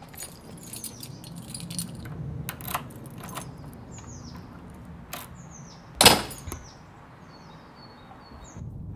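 Small birds chirping in short, falling chirps over a scatter of clicks and knocks, with one loud thud about six seconds in.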